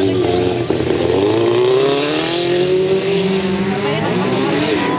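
Autocross race cars' engines revving hard on the dirt track. The pitch climbs for a second or two as they accelerate, drops, then climbs again near the end.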